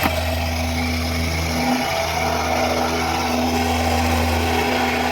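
Concrete vibrator's small engine running steadily to compact a freshly laid layer of wet concrete.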